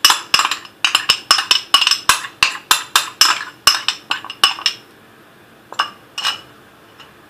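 A mixing utensil clinking rapidly against a bowl, about four to five strikes a second, as gelatin is stirred into a cheesecake filling; the clinking stops after about four and a half seconds, followed by two single knocks.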